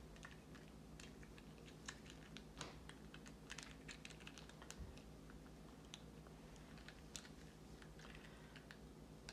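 Faint, scattered clicks and taps of hands handling a pair of Vortex Fury HD 5000 AB rangefinding binoculars, thickest in the middle.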